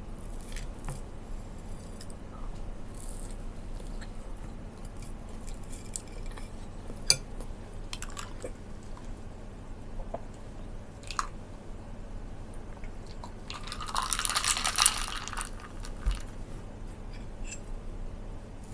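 Close-up eating sounds: a person chewing toast, with sharp clicks of a metal fork on a ceramic plate and a glass mug now and then, and a louder crunchy, rustling stretch about three-quarters of the way through.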